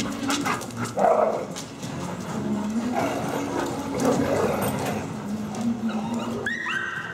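Dogs vocalising as they play together, with a run of short, high, falling whines near the end.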